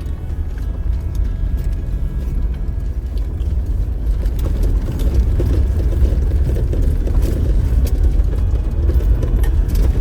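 Diesel 4x4's engine pulling at low speed in four-wheel high, with tyres rumbling over rough trail and scattered knocks and rattles from the body and suspension. It gets louder and rougher about four seconds in.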